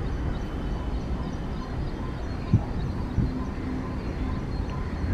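Indian Railways diesel locomotive running with a steady low rumble, with a couple of sharp knocks in the middle.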